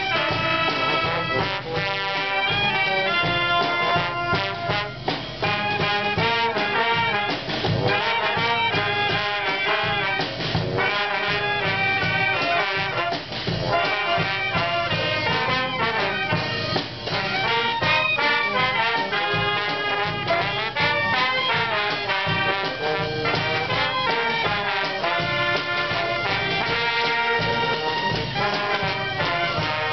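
Small brass band of clarinets, trumpets, trombones and a large bass horn playing a tune together.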